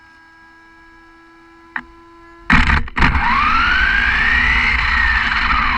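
A 1/10-scale RedCat RC monster truck pulls away: after a faint steady hum and a single click, its motor and drivetrain suddenly start up loud with tyre and road rumble. The motor whine rises in pitch as the truck speeds up, then falls away near the end as it slows.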